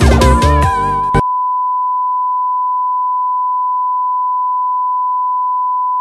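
Electronic background music cuts off suddenly about a second in, leaving a single steady test-tone beep sounding alone at an unchanging pitch and level: the reference tone that goes with television colour bars.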